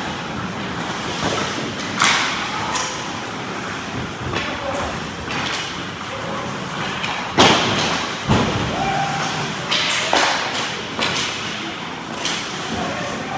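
Ice hockey play: a string of sharp thuds and knocks, pucks and players hitting the boards, about a dozen in all, the loudest about seven seconds in.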